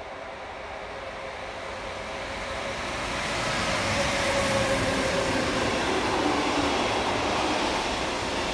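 A train approaching and passing close by: a rising rush of wheel and running noise, loudest from about four seconds in, with a tone that drops slightly in pitch as it goes past.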